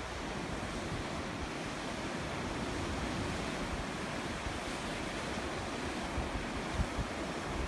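Sea waves washing steadily on the shore, with wind buffeting the microphone in a few low gusts near the end.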